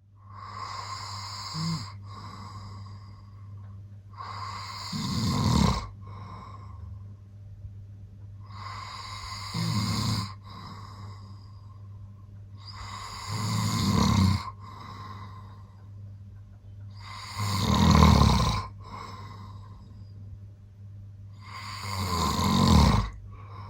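A man snoring in his sleep, one snore about every four seconds, each swelling to a loud peak; the first is smaller, the later five loud. A steady low hum runs underneath.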